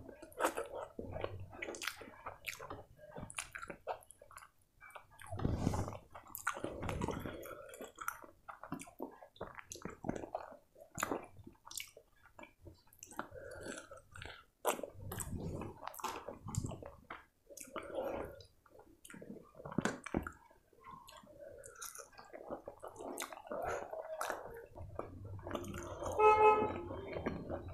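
Close-up chewing and wet mouth sounds of a person eating chicken curry and rice by hand, with soft squishing as fingers gather rice and curry from a steel plate. A brief pitched tone sounds near the end and is the loudest moment.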